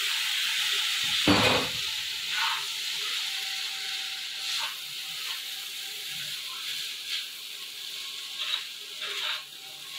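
Boiled chowmein noodles and vegetables sizzling in a hot non-stick wok as a spatula tosses and stirs them, with a steady hiss, several short scraping strokes and one louder knock about a second in.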